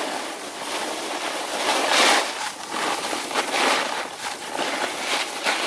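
Snowboard sliding and carving down packed snow: the board's edge scraping and hissing over the surface, swelling in surges as the rider turns, loudest about two seconds in, with wind rushing over the camera microphone.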